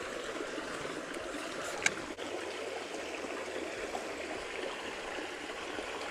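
Fast-moving creek water running steadily, with a single sharp click about two seconds in.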